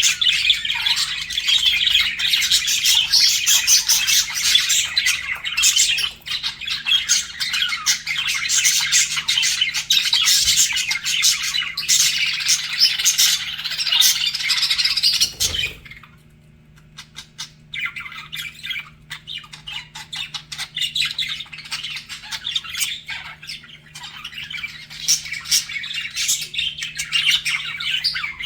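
Budgerigars chattering: a dense run of fast warbles, chirps and squawks that cuts off abruptly with a low thump about halfway through, then resumes more sparsely and builds back up.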